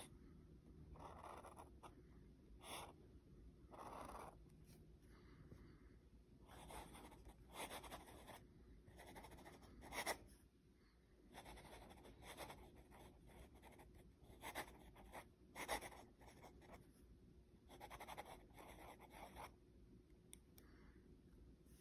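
Sailor 1911 fountain pen's nib scratching across lined paper as it writes, faint and quiet: a run of short, uneven strokes with a few sharper ones among them.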